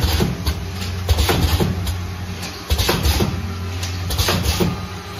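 Automatic vial filling and capping machine running: a steady low motor hum under an uneven series of clicks and knocks from its moving parts, about two a second.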